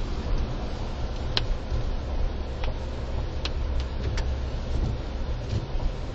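Car cabin noise while driving slowly over a snowy road: a steady low rumble of engine and tyres, with a handful of sharp, irregularly spaced ticks.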